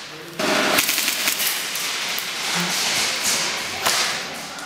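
Airsoft gunfire: sharp cracks and snaps, some in quick runs, echoing in a large indoor hall. They start suddenly about half a second in, over a dense hiss.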